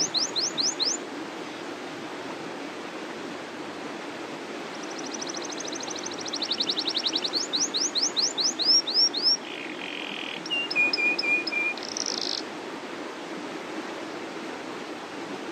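Domestic canary singing its rolling song: a short phrase of quick rising sweeps at the start, then after a pause a long run of rapid trills and rising sweeps, with a lower trill and a buzzy note before it stops about three-quarters of the way through. A steady rushing noise lies underneath.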